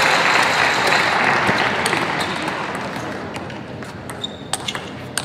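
Table tennis ball clicking off rackets and the table during a rally, a string of sharp, irregular clicks. Crowd noise fades away over the first few seconds.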